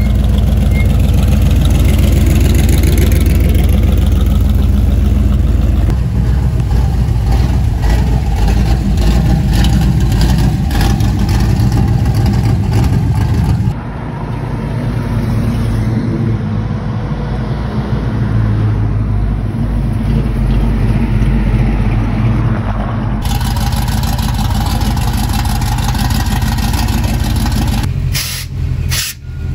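Classic car engines running as the cars drive slowly past, a steady deep rumble. The sound changes abruptly about 14 and 23 seconds in, and dips near the end.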